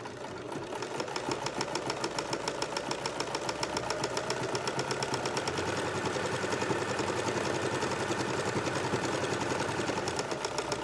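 A light-duty home sewing machine stitching through layers of cotton mask fabric along an edge, running steadily with a rapid, even clatter of stitches.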